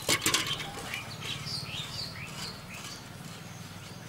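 A few clinks and splashes of a steel knife being rinsed in a steel bowl of water, followed by a bird chirping several times in short, sliding calls.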